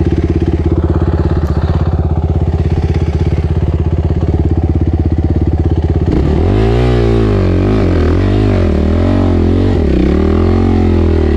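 Suzuki RMX450Z's single-cylinder four-stroke engine running steadily at low revs, then from about six seconds in revving up and down over and over under load on a steep, rocky climb.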